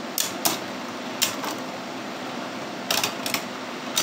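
Two Beyblade Burst spinning tops, Geist Fafnir F4 8' Absorb and Brutal Luinor L4 13 Jolt, clash in a plastic stadium. About seven sharp plastic clacks come at irregular intervals, two close together about three seconds in.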